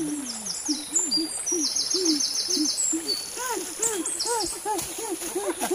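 Young men hooting in a rhythmic mock-primitive chant, short rise-and-fall 'hoo' calls about two to three a second, louder and faster from about three seconds in.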